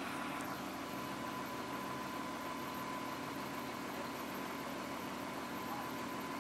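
Truck-mounted crane's engine running steadily as the crane hoists a dumpster, with a thin steady whine over it.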